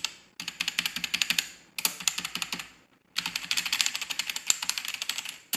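Rapid typing on a mechanical keyboard with Cherry MX White switches, dense runs of sharp clicks in three bursts with brief pauses between. It is really loud.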